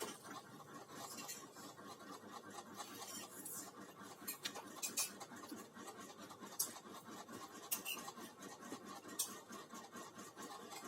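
Faint eating sounds: a spoon scraping and clicking against a plate in scattered short strokes.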